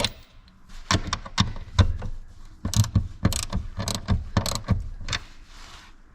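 Ratchet wrench clicking in a series of short strokes as the bracket's mounting nuts are tightened down.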